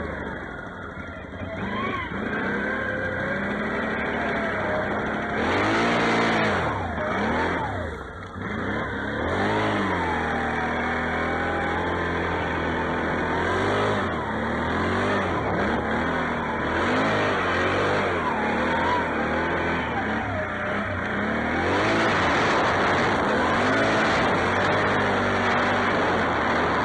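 Can-Am XMR 650 ATV's V-twin engine revving up and down again and again as it is ridden through deep snow, with its pitch rising and falling on the throttle.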